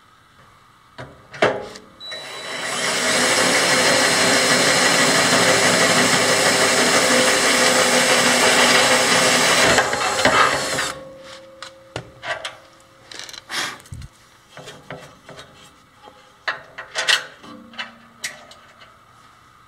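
DeWalt 20V cordless drill running steadily under load against a steel channel for about eight seconds, drilling into the metal, then stopping. Before and after it come scattered sharp clicks and knocks of metal parts being handled.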